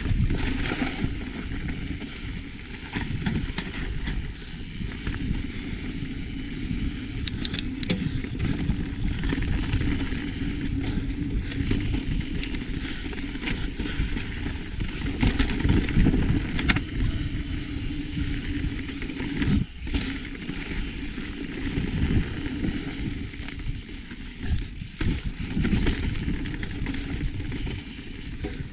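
Mountain bike riding down a rough dirt trail: wind rushing over the microphone, tyres running over dirt and rock, and scattered clicks and knocks as the bike rattles over bumps.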